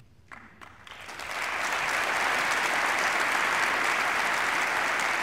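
Applause from members of Congress, starting as a few scattered claps and swelling about a second in to steady, sustained applause from the full chamber.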